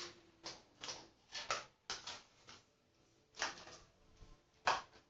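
Slime being stirred in its pot: a run of short, irregular scrapes and knocks against the pot, about eight strokes with a pause in the middle, the loudest near the end. It is being mixed to firm up slime that is still too soft.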